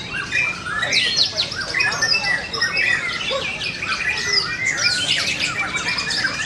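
White-rumped shama singing loudly: an unbroken run of fast whistled glides, trills and chattering phrases, with other caged birds singing at the same time.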